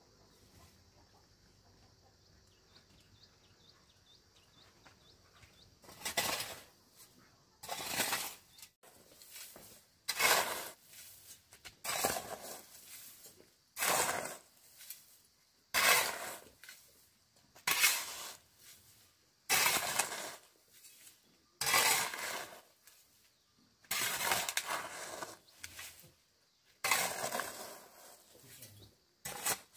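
Repeated scraping strokes, about one every two seconds, starting about six seconds in, over a faint steady high insect buzz.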